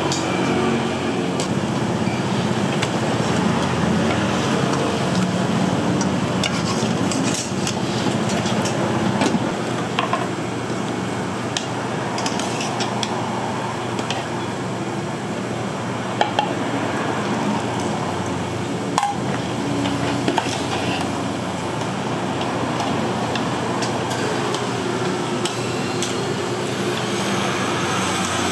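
Metal ladle and wire-mesh strainer stirring, scraping and clinking against a stockpot and china bowls while greens are blanched, over a steady hum and hiss. A few sharp clinks stand out in the second half.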